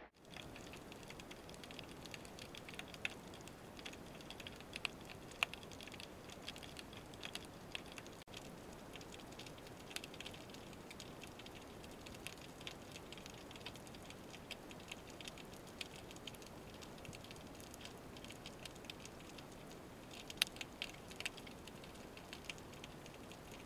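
Faint underwater ambience: a steady hiss dotted with many small scattered clicks and crackles, with a few sharper clicks about five seconds and about twenty seconds in.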